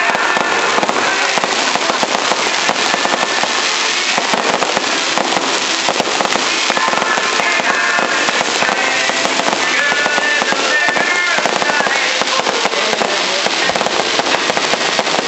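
Fireworks display in a dense barrage: many shells going off close together in continuous crackling and popping, with no real gaps.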